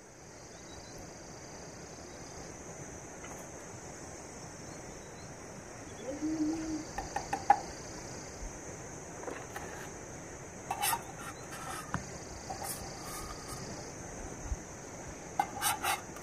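Metal cookware and utensils clinking lightly against a glass and a pot, in a few small clusters of taps from about six seconds in, over a steady high hiss.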